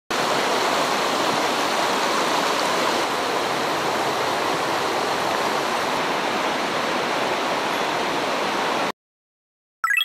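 Small rocky mountain stream flowing: a steady rush of water that cuts off abruptly about a second before the end. Just before the end, a short bright chime starts.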